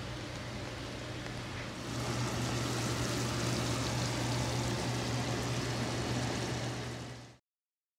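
Steady hiss of cooking over a low hum. From about two seconds in it grows louder as chicken stew bubbles and simmers in an uncovered pot, then it cuts off abruptly near the end.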